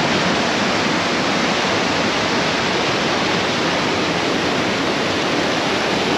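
Steady, loud rush of fast-flowing stream water.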